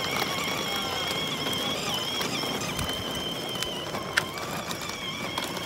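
Battery-powered ride-on toy motorcycle driving along: its small electric motor and gearbox whine steadily while the plastic wheels rumble over rough asphalt, with a sharp click about four seconds in.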